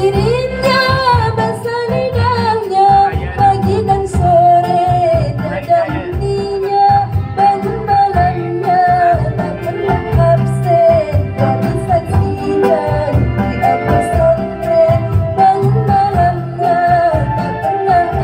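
A woman singing solo into a microphone over backing music with a steady low beat, her melody gliding and held on long notes.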